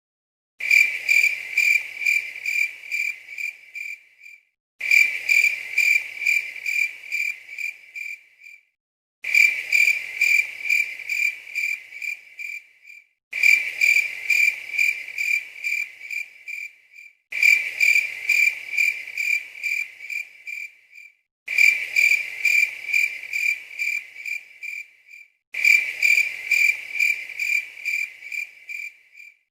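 Cricket chirping sound effect: a cricket's high, evenly spaced chirps, about three a second. A clip of about four seconds is looped over and over, each pass fading out and then cutting to a brief dead silence before it starts again.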